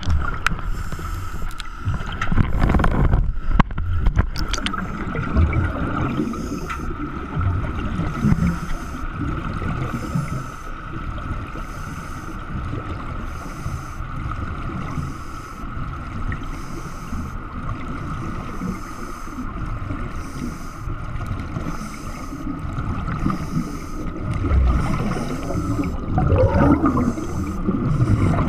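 Underwater sound heard through a camera housing: a low, churning rumble and gurgle of water and a diver's exhaust bubbles, with a steady high tone beneath it.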